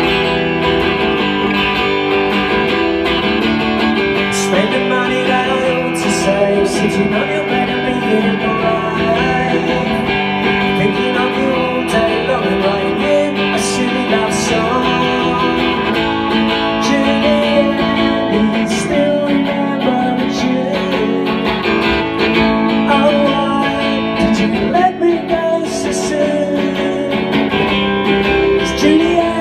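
Solo live song on an amplified electric guitar, strummed chords ringing steadily, with a man's singing over it at times.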